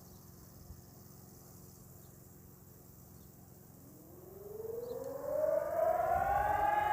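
Civil defence siren being tested, winding up about four seconds in: its pitch rises over about two seconds and then holds as a steady, loud wail.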